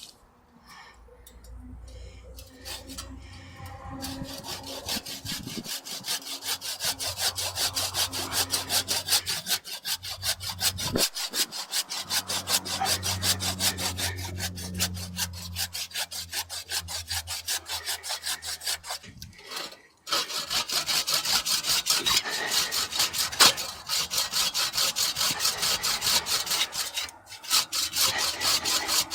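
Hand saw cutting through a tree branch in quick, regular back-and-forth strokes. The sawing starts about four seconds in, breaks off briefly about two-thirds of the way through, then resumes.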